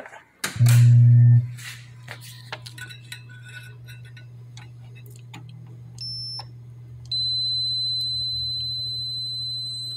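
Pinball machine powering up: a loud low electrical hum for about a second, settling to a faint steady hum, with a few light clicks. About six seconds in a logic probe gives a brief high beep, then a steady high-pitched tone that holds to the end: a constant level with no pulsing activity on the pin being probed.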